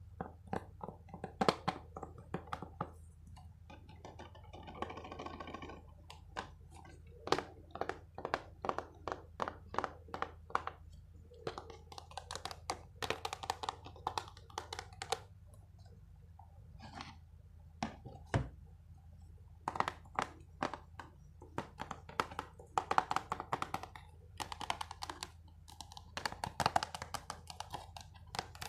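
Close-up ASMR tapping and clicking on small hand-held objects, in quick irregular runs of taps with short pauses, and a brief scratchy rustle about five seconds in. A faint steady low hum runs underneath.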